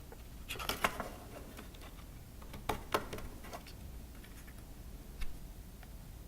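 A few scattered light clicks and knocks from wooden motor mounts being handled and pushed into a small robot kit's platform.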